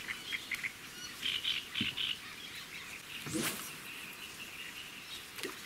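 Small birds chirping in short bursts, with one brief, louder rising sound about three and a half seconds in.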